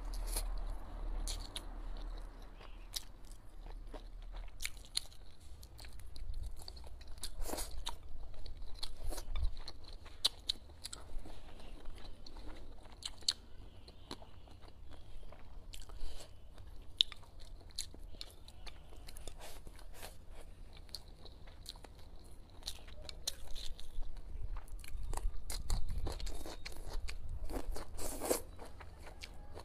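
Close-miked eating sounds of a person chewing pork ribs and leafy greens: a steady run of small wet clicks and crunches, busier in a few stretches, with a louder burst near the end as a green stalk is drawn into the mouth.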